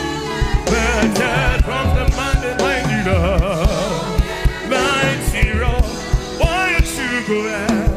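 Gospel praise music: a lead voice singing with heavy vibrato over a band with a busy drum beat.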